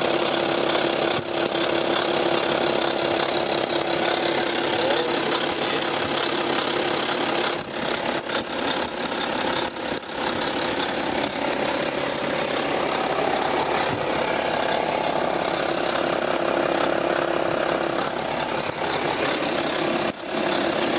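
BMW N57 3.0-litre diesel engine idling, recorded up close at the front of the engine, with a periodic clacking rattle in its running that the mechanic judges to be a stretched timing chain.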